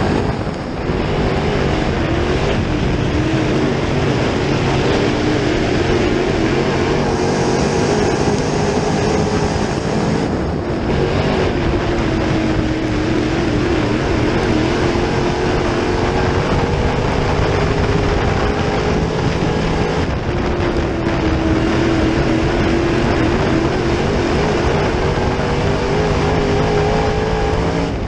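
Dirt late model's 604 crate small-block Chevrolet V8 running hard at racing speed, heard from inside the car. Its pitch rises and falls as the throttle comes off and back on through the corners, with short dips near the start, about ten seconds in and about twenty seconds in.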